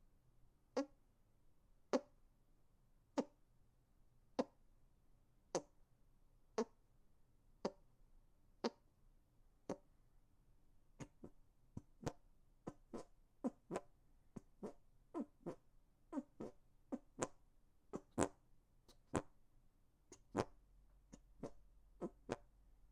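Hand farts: fart noises made by squeezing air out with the hands, in a string of short bursts. They come about once a second at first and become quicker, roughly twice a second, from about halfway through.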